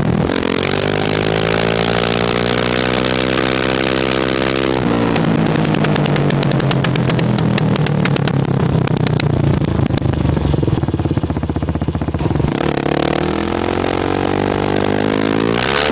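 Kawasaki KFX 400 ATV engine and exhaust, recorded right at the muffler with distortion. The pitch climbs under throttle for about five seconds and then drops sharply. The engine then holds lower for several seconds with a rapid crackling of pops from the exhaust, climbs again, and drops near the end.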